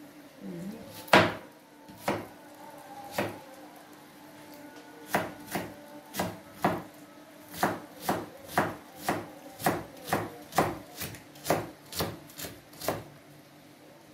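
Kitchen knife chopping onion on a plastic cutting board. A few scattered strokes come first, then from about five seconds in a steady chopping of about two strokes a second.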